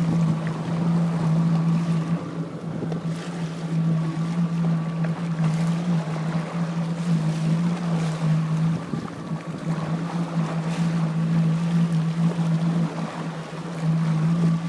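Jet ski engine running steadily at low speed, a constant hum with a fainter higher whine, wavering in loudness and fading briefly a couple of times.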